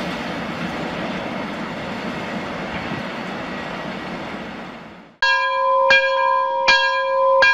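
Freight train of tank wagons rolling past, a steady rumble of wheels on rails that fades away about five seconds in. It is followed by bell-like chimes, four ringing strikes about 0.7 s apart.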